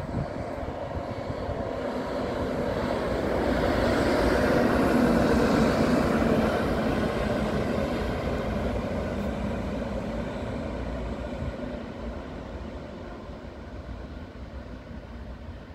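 Siemens Vectron electric locomotive running through a station, its noise swelling as it comes close and fading away as it goes past.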